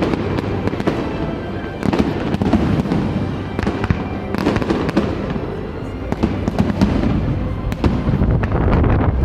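Fireworks exploding: a dense run of bangs and crackling bursts, one after another.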